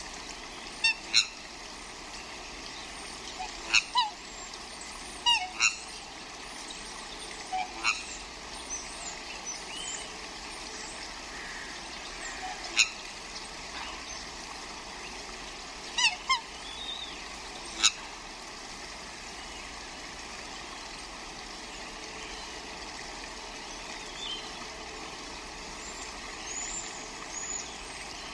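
Swans squawking: short honking calls, singly or in quick pairs, scattered irregularly over a steady background hiss. They come thickly in the first eighteen seconds, and a few fainter ones follow near the end.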